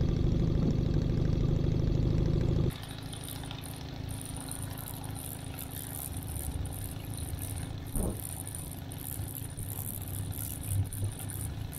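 Minimax 1100R ultralight's engine running steadily at low power while taxiing, propeller turning. It is loud and even at first, then drops suddenly to a much fainter, more distant sound about three seconds in, with a short knock near eight seconds.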